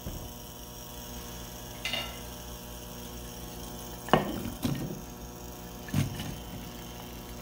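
A steady electrical hum, with a few short knocks as sliced onion and carrot are tipped from a bowl into a nonstick frying pan and pushed in with wooden chopsticks, the oil not yet sizzling.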